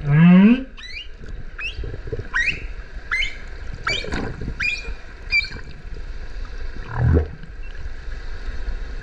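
Humpback whale song heard underwater: a loud low call that rises in pitch at the start, then a run of about eight short rising whoops, one every second or less, and another low call about seven seconds in.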